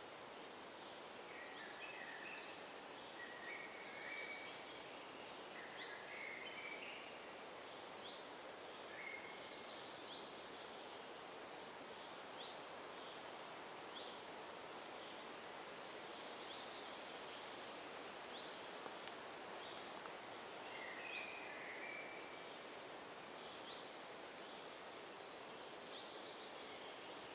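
Faint forest background: small songbirds giving short, high chirps and calls on and off over a steady hiss, with a thin high falling note twice.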